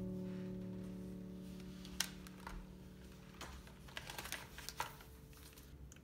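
A held music chord fading out, then a handful of light plastic and metal clicks and knocks as a steam iron and a metal cup are handled and set down.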